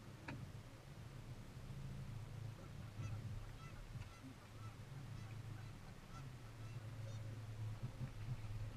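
Geese honking, a run of short calls a couple of times a second from about two seconds in, over the steady low hum of the boat's outboard motor.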